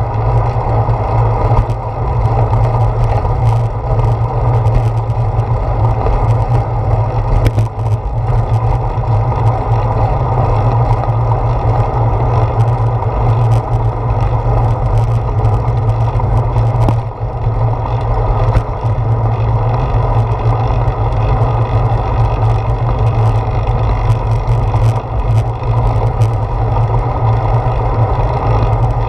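Steady wind rush and road rumble picked up by a handlebar-mounted GoPro Hero 4 on a moving bicycle, with scattered short knocks as the bike goes over bumps in the path.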